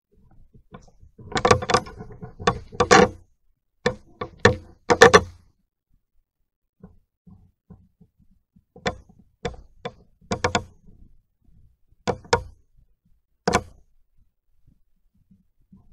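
Irregular close knocks and thumps in clusters, loudest in a run of about eight a few seconds in and a sparser run later on.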